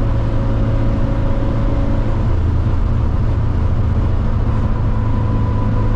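Simca Rallye 2's rear-mounted four-cylinder engine running at a steady speed while the car drives, an even drone with no revving up or down.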